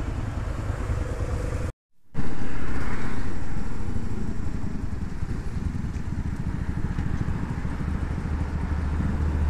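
Motorcycle engine idling, then, after a brief cut to silence, the motorcycle riding along with engine and wind noise that eases off as it slows to a steady idle near the end.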